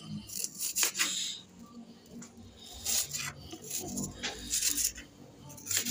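Serrated kitchen knife slicing through onion on a plastic cutting board: several separate, irregularly spaced cuts, each a short crisp scrape against the board.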